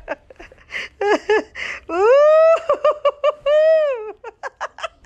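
A person laughing hard: quick high-pitched bursts with breathy gasps between them, and two long high squealing notes in the middle.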